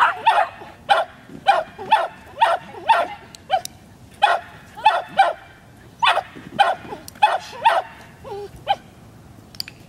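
A dog barking over and over, about two barks a second, with short pauses about four seconds in and again near the end, as it runs an agility course.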